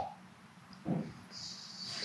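A dog gives a short snort about a second in, then a faint high hiss near the end.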